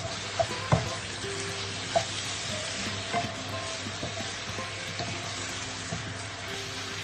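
Egg noodles and vegetables sizzling in a frying pan as they are stirred and tossed with a wooden spatula, a steady hiss broken by a few sharp knocks of the spatula on the pan, the loudest a little under a second in.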